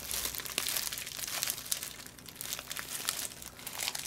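Plastic sauce sachet crinkling and crackling in plastic-gloved hands as it is twisted, pulled and bitten at to tear it open, with a steady scatter of sharp little crackles.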